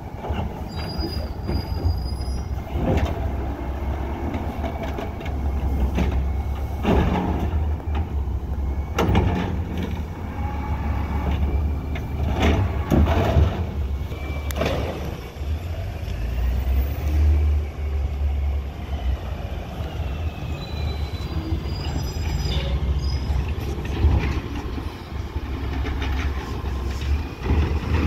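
Autocar ACX garbage truck with an Amrep automated side-loader: its natural-gas engine runs steadily while the hydraulic arm works a cart, with repeated loud bangs and high metallic squeals.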